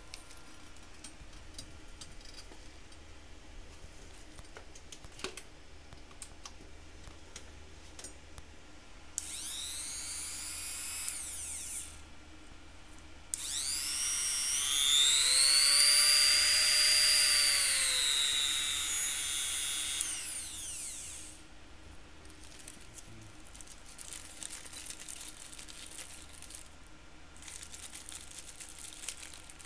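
Small handheld mini grinder (rotary tool) motor switched on twice: a short high whine of about two seconds, then a longer run of about eight seconds whose pitch climbs, holds, then sinks before it stops. Between and after the runs, light handling clicks and plastic rustling.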